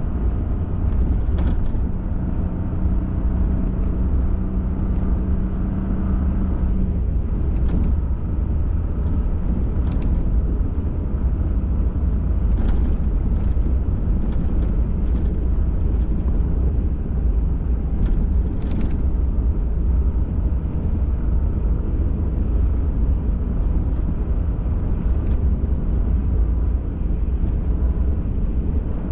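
Off-road pickup truck driving along a trail: a steady low rumble of engine and tyres, with scattered short knocks and rattles. A steady hum sits over the rumble and stops about seven seconds in.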